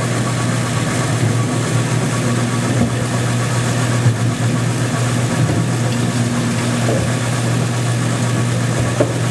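Motor of an oil-water separator machine running with a steady low hum. A couple of light knocks sound about four seconds in and near the end.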